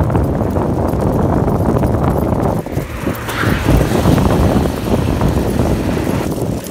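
Longboard wheels rolling at speed over an asphalt path, a continuous rumble, with a brief higher hiss about three seconds in.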